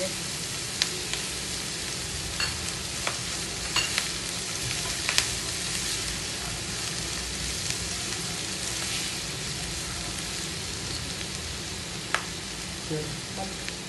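Onions, dals and peanuts frying in hot oil in a nonstick pan, sizzling steadily as curry leaves go in, stirred with a silicone spatula, with a few sharp clicks scattered through.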